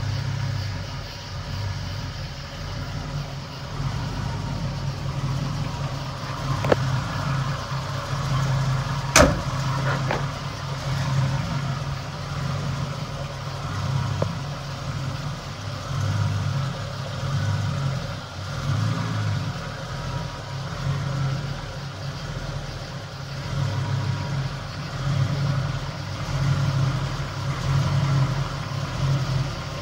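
Chevrolet C10 pickup's fuel-injected 350 V8 idling steadily, with two sharp clicks, the louder about nine seconds in.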